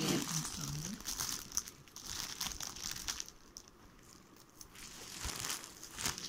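Plastic bubble-wrap packaging crinkling as it is handled, in irregular bursts of crackle with short quieter gaps between them.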